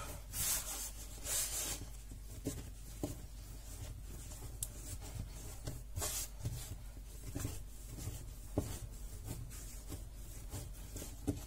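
Hands kneading semolina bread dough on a tiled worktop: irregular rubbing and pressing, with a few short knocks as the dough is pushed down on the tiles.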